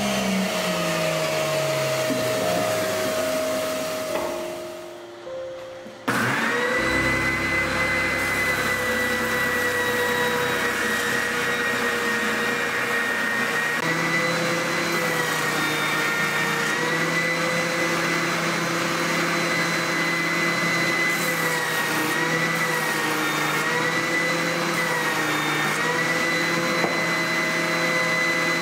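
A router table's motor winding down, its pitch falling away. About six seconds in, an oscillating spindle sander starts suddenly and runs with a steady whine, its pitch dipping slightly now and then while a curved, bent beech piece is sanded against the drum.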